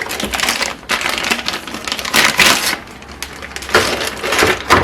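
Packaging rustling and crinkling, handled in several irregular bursts, as the camcorder's AC adapter is taken out.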